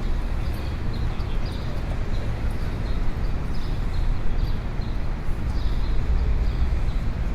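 Street ambience: a steady low rumble of traffic with a run of short, sharp knocks repeating about twice a second.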